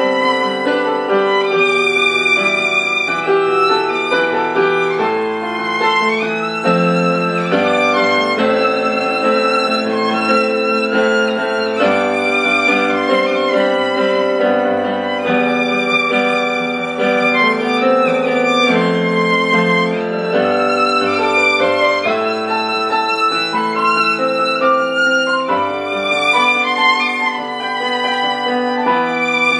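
Instrumental music: a violin playing a slow melody with vibrato over sustained lower notes.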